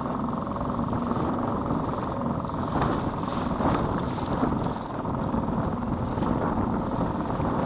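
Small gas outboard motor running steadily at speed, with the Pelican Bass Raider's hull slapping through choppy water and spray splashing over the bow a few times.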